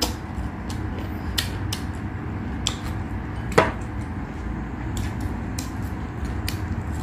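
Close-miked mouth eating sounds: chewing and small wet clicks while eating fish and a green chili by hand. There is one sharper knock about halfway through, like food or a hand against a dish.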